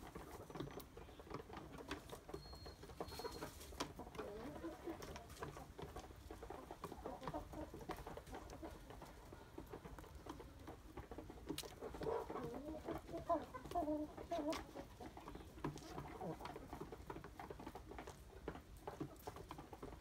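Chickens, hens and roosters, clucking and murmuring while they feed, many short low calls overlapping, busiest a little past the middle. Scattered small sharp taps of beaks pecking at a plastic feed tray.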